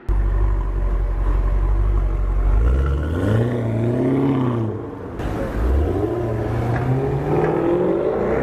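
Maserati Quattroporte GTS twin-turbo V8 pulling away. Its exhaust starts as a steady low rumble, then the revs rise and fall about three seconds in and climb again twice near the end.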